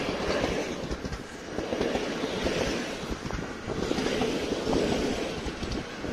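Polregio passenger coaches rolling past on the track, wheels clacking over rail joints, the rumble swelling and fading every two seconds or so.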